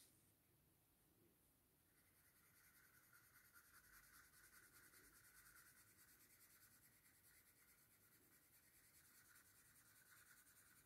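Very faint graphite pencil shading on paper: a soft, continuous scratching of small stroking movements that starts about two seconds in.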